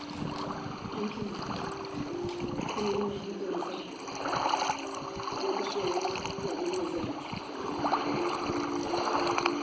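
Water splashing and lapping in recurring swells, under a low hum of several held tones that shift in pitch from time to time.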